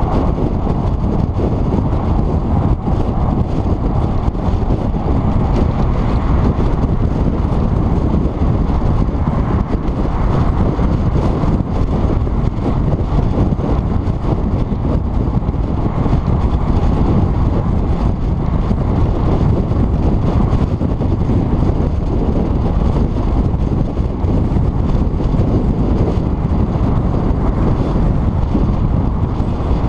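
Steady, loud rush of wind and road noise from a car driving at highway speed, heard through a camera mounted outside on the hood, with the wind buffeting the microphone.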